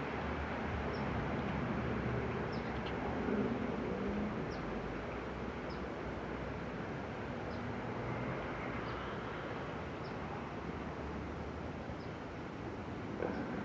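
Steady outdoor rumble of wind and distant traffic, with a small bird giving short high chirps about once a second.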